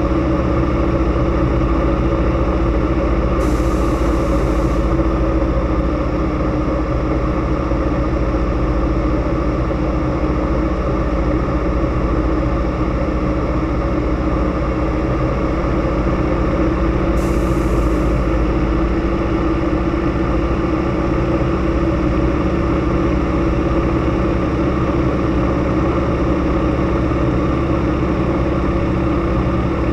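Let Z-37A Čmelák agricultural plane's Walter M-462 nine-cylinder radial engine and propeller running steadily in flight, heard from inside the cockpit.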